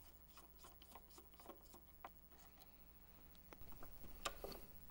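Faint clicks and scrapes of a screwdriver working a small screw and of hands handling the ignition coil and its wires. A louder cluster of rattling clicks comes about four seconds in.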